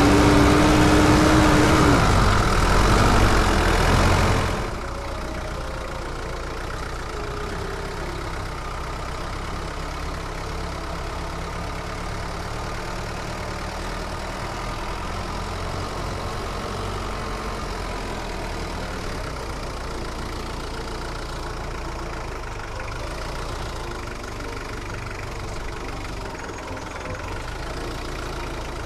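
Engine of an open, exposed-engine vehicle running as it drives along a rough dirt track, heard from the driver's seat. It is loud at first, then drops to a quieter, steady run about four and a half seconds in.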